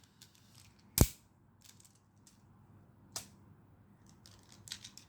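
Plastic magnetic building tiles clicking together as they are placed: a sharp click about a second in, another about three seconds in, and a few lighter clicks near the end.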